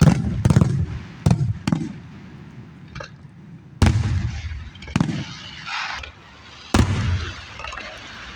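Aerial firework shells bursting: a run of sharp booms, several close together in the first two seconds, then single booms about four, five and seven seconds in, each trailing a low rumble.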